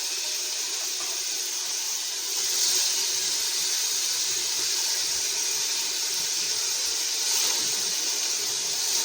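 Raw beef pieces sizzling in hot ghee-and-tomato masala in the cooking pot as they go in to be browned: a steady hiss that gets louder a couple of seconds in.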